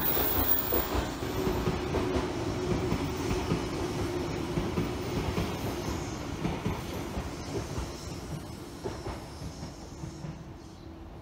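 Electric commuter train running past on the tracks, a steady rumble of wheels on rails with some clatter, fading away over the last few seconds.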